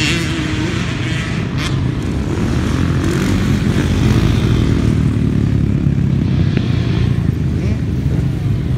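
Several motocross dirt bikes running around a dirt track, engines revving and blending together, with one bike passing close about four seconds in and briefly louder.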